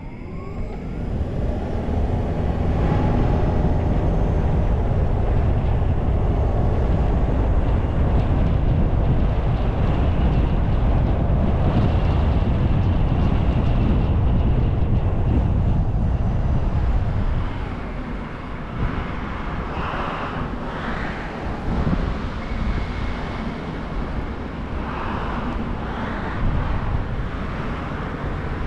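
Wind and road noise of a car driving, a steady low rumble that builds over the first couple of seconds. It drops off about two-thirds of the way through as the car slows to a stop sign, and after that it runs lighter, with other cars passing briefly on the cross road.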